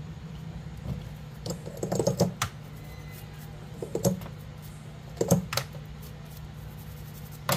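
Several small groups of light clicks and taps from handling tools and parts at a phone-repair bench, over a steady low hum.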